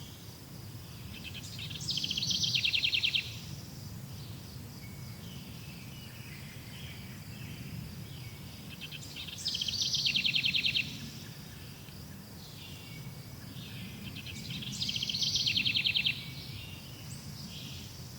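Songbirds chirping: one bird sings a loud, fast trill three times, each about a second and a half long, with softer chirps between, over a steady high-pitched drone.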